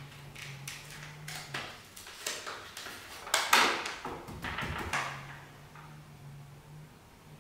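A paper bag of flour being unfolded and opened by hand, crinkling and rustling in a series of short bursts, loudest a little past halfway.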